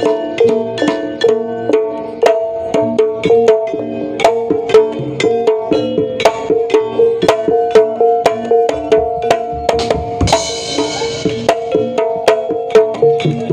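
Jaranan gamelan music: hand drums struck in a brisk rhythm over the steady ringing notes of tuned metal percussion. About ten seconds in there is a single crash that fades over about a second.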